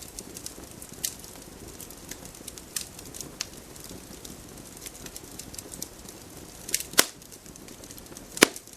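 Wood campfire burning: a steady low rustle of flames with irregular sharp crackles, and two loud pops of burning wood near the end.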